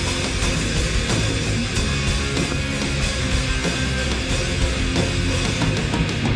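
Live rock band playing a heavy instrumental passage with guitars and drums, without vocals.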